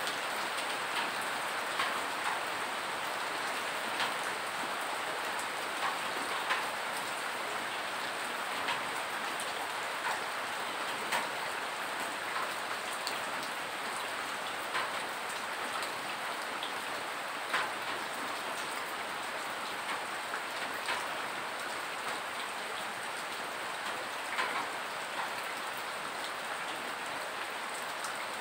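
Steady rain falling, with scattered louder drops landing close by at irregular moments, about one every second or two.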